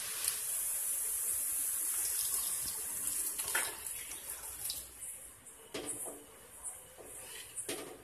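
Milk pouring from a jug into a pan of fried grated carrot: a steady splashing pour that grows quieter after about three seconds, with a few light knocks near the end.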